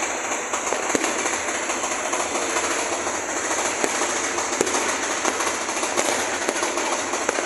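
Fireworks and firecrackers going off across a town in a continuous dense crackle, with scattered louder pops.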